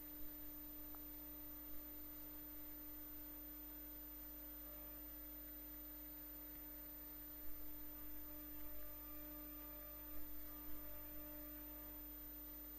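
Telephone pickup-coil recording of the electromagnetic field from a 1996 Tube Stock's GEC Alsthom GTO-VVVF traction inverter: a faint, steady electrical hum centred near 300 Hz with higher overtones and no change in pitch. A few faint clicks come in the second half.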